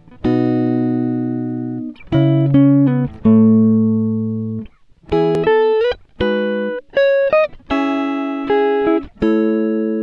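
Background music of picked notes and chords, each starting sharply and ringing out as it fades, in short phrases of a second or two.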